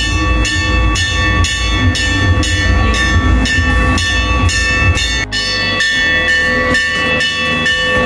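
Chinese temple ritual percussion played in a steady beat: about two metallic clashes a second over a sustained ringing of bell-like tones and a deep drum rumble. The deep rumble drops away about five seconds in while the metal strokes go on.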